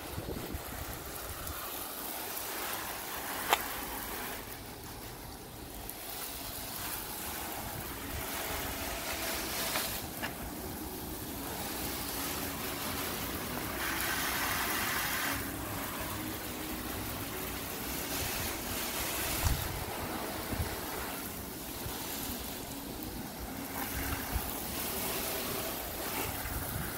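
Garden-hose spray nozzle spraying water onto a car's body panels and wheel: a continuous hiss of spray that swells and fades as the jet moves. A single sharp click comes about three and a half seconds in.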